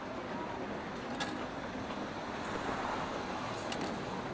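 Steady rainy café ambience: a continuous wash of rain noise with a couple of short, sharp clicks, about a second in and again near the end.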